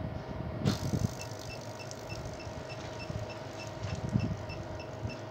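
Steady electrical hum, then a couple of low thumps with a hiss about two-thirds of a second in, followed by a clamp meter beeping rapidly, about four short high beeps a second: the meter's overload alarm, driven past its range by the current from a 50 V transformer into a 12 V lead-acid battery.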